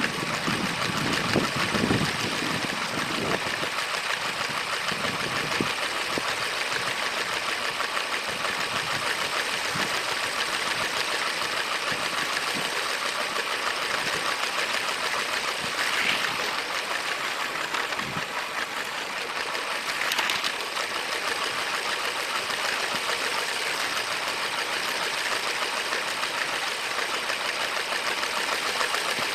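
A motorised LEGO train runs on plastic track: a steady small-motor whir with a fast, continuous rattle of wheels.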